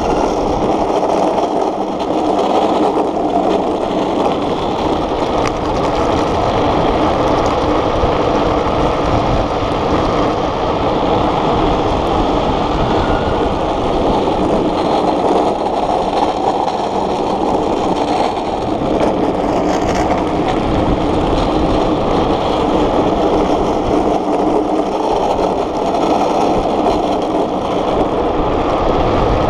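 Unpowered gravity speed trike rolling downhill at speed: a steady, loud roar of its wheels on rough asphalt, mixed with wind rushing over the onboard microphone.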